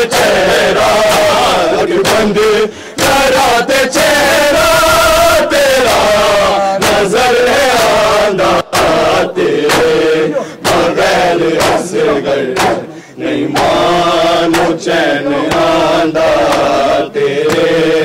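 A crowd of men chanting a noha, a mourning lament, together in a loud sung refrain. Sharp slaps of hands striking bare chests (matam) recur all through it.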